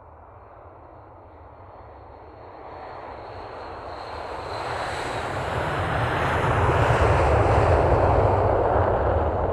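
Jet airplane approaching and passing, its roar growing steadily louder to a peak late on and easing slightly at the very end, with a thin high engine whine that drops a little in pitch as it goes by.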